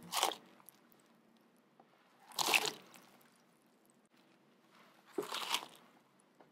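Handfuls of whole strawberries dropped into a glass bowl of water: three short splashes, about two and a half seconds apart.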